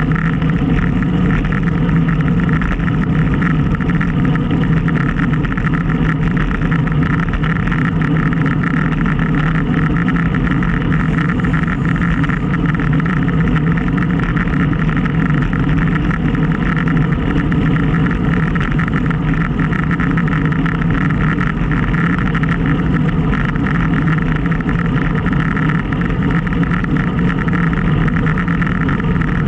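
Steady rush of wind and road noise on a bicycle-mounted action camera's microphone while riding, even and unchanging throughout.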